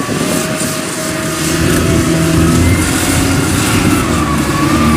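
Engine of a small Kubota paddy-field machine running under load through deep mud, a steady drone whose pitch wanders slightly.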